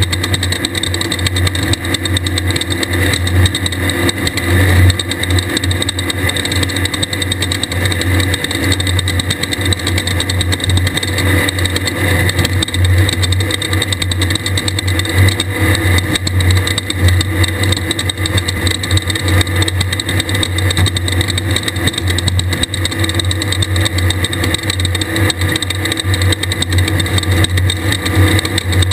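A 1600-class desert race buggy's air-cooled Volkswagen flat-four engine running hard and fairly steadily at speed, its note wavering up and down a little.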